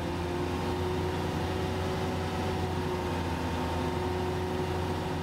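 Komatsu HM300/400 articulated haul truck's diesel engine held steady at about 1550 rpm in drive against the engaged parking brake, heard from inside the cab: an even drone with the truck standing still, as a parking brake check.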